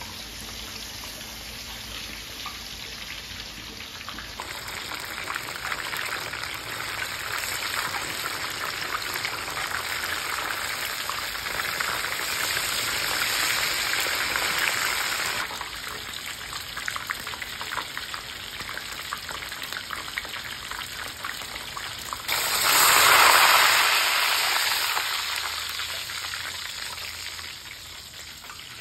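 Whole chicken deep-frying in hot oil, the oil sizzling and crackling steadily and growing louder over the first half. About two-thirds of the way through, a sudden loud surge of sizzling fades away over several seconds.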